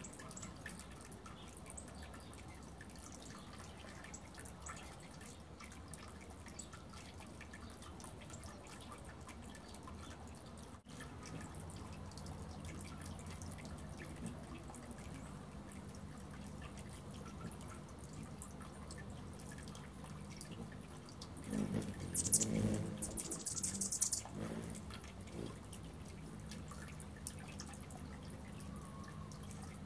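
Faint outdoor background with fine ticking. About a third of the way in, a low steady hum starts, fitting a hummingbird's wings as it hovers at a feeder. Around two-thirds of the way through there is a louder noisy burst lasting about three seconds.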